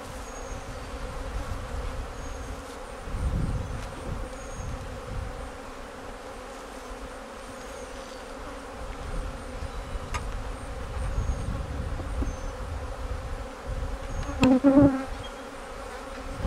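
Honeybees buzzing in a steady hum around an opened hive, a robbing frenzy set off by a long nectar dearth. About 14 to 15 seconds in, a single bee buzzes loudly close to the microphone; a few low rumbles come and go.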